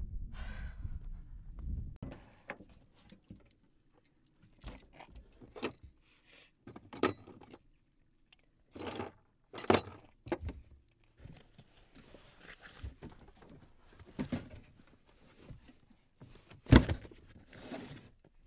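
A low rumble fades out within the first two seconds. It gives way to irregular knocks, clicks and short rustles, like things being handled, with one heavy thump near the end.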